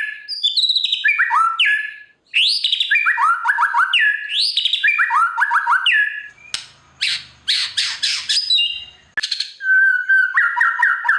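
White-rumped shama (murai batu) singing: loud whistled phrases that slide down in pitch, repeated several times, then harsher chattering notes from about six seconds in, and a fast run of repeated notes near the end.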